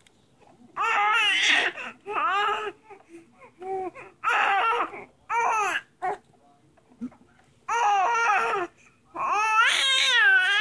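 Infant cooing and babbling: a string of high, drawn-out vocal sounds whose pitch wavers up and down, with short pauses between them and the longest one near the end.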